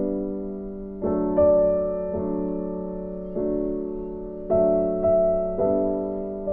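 Background music: soft piano playing slow chords, a new chord struck about every second and left to fade.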